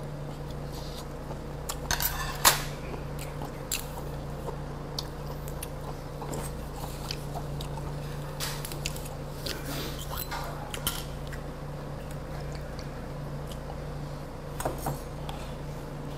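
A person eating a meal: chewing with scattered clicks and clinks of chopsticks, spoon and dishes, the sharpest about two seconds in. A steady low hum runs underneath.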